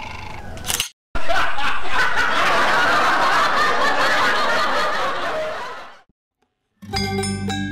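Laugh track: a dense group laughing, added as a comedy sound effect, starting about a second in and fading out around six seconds in. Mallet-percussion music begins near the end.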